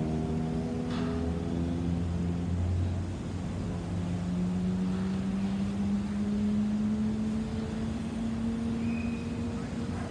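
Airbus A320's CFM56 jet engines passing overhead: a steady roar with humming tones that glide slowly down over the first few seconds, then one tone that rises slowly in the second half.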